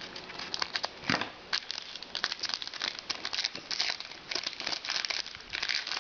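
Trading cards and their pack wrappers being handled by hand: irregular rustling and crinkling.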